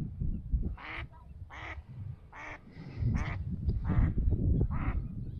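A duck quacking, a run of about six evenly spaced quacks, over a low rumble.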